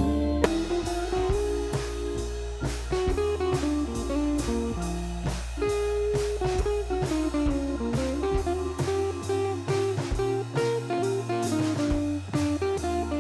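Background music: a guitar-led, blues-style instrumental with drums and a steady beat.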